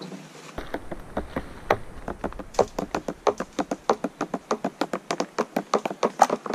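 Rapid, uneven taps and knocks close to the microphone, about five or six a second, beginning about half a second in, as a man's arms and clothing move and bump right against a body-worn camera.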